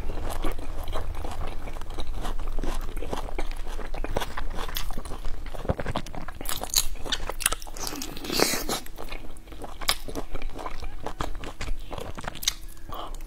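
Close-miked biting and chewing of a large dumpling with a crisp fried wrapper: crunching, clicks and wet mouth sounds, with a louder stretch about two-thirds of the way through.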